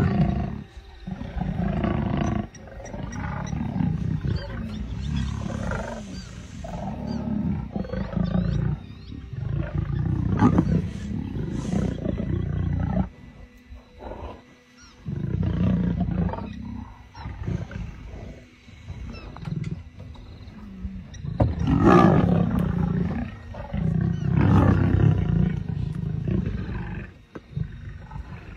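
Lionesses growling in repeated deep bouts of a few seconds each, with a short lull about halfway through.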